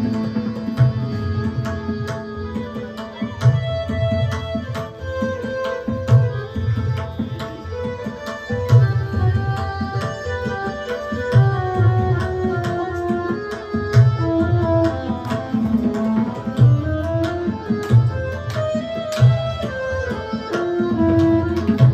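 Tabla and keyboard accompaniment to a ghazal. The tabla keeps a rhythmic cycle with a deep bass stroke about every two and a half seconds, under a melody of held notes with a few sliding turns.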